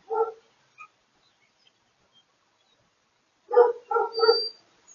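A dog barking: one short bark at the start, then a quick run of about three barks a little past three and a half seconds in.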